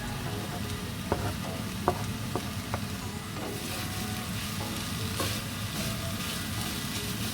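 Mushrooms, onion and red capsicum frying and sizzling in a pan while a utensil stirs them, tapping against the pan a few times in the first three seconds. The sizzle gets stronger about halfway through.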